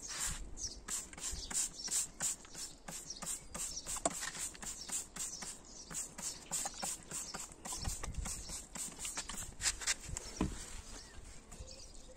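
Rose Clear Ultra trigger spray gun squeezed over and over, each pull of the trigger a short hiss of spray, about three a second, tailing off about ten seconds in.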